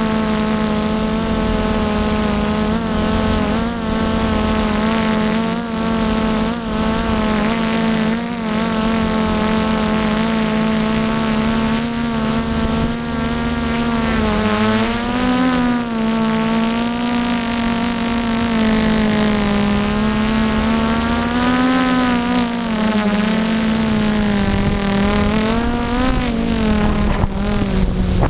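Y6 tricopter's brushless motors and propellers running in flight: a steady multi-tone hum whose pitch wavers and swells up and down as the motor speeds change, with a thin high steady whine above it.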